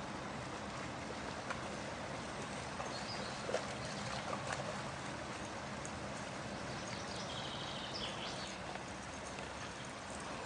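Quiet outdoor ambience by a river: a steady rushing hiss with light rustling and footfalls through dry undergrowth. A few faint, high bird chirps come about halfway through and again a little later.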